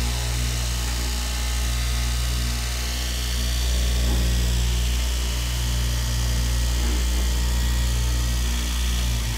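Electric straight-knife cloth cutting machine running steadily, its vertical reciprocating blade cutting through fabric, with a constant motor hum.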